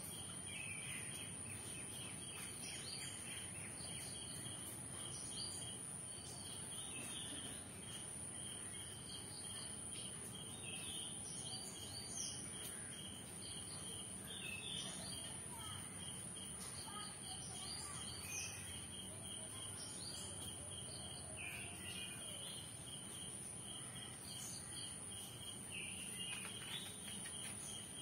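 Crickets chirping in a steady, even pulse over a continuous high insect whine, with birds giving short chirps now and then.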